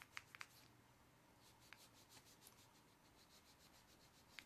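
Faint rubbing of a glass-cleaner-dampened paper towel over the aluminium casing of a 2nd-generation iPod Shuffle, in quick repeated strokes, with a few light ticks near the start and one near the end.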